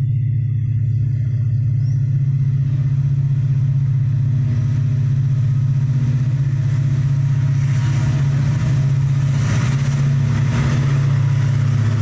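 CC 202 diesel-electric locomotive's engine running with a steady low drone. From about eight seconds in, a rising noise with some knocks builds over it.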